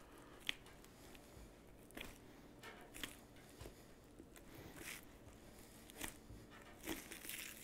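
Faint knife work on a deer carcass: a boning knife slicing the backstrap free along the spine while the meat is pulled away, heard as scattered small clicks and soft scrapes.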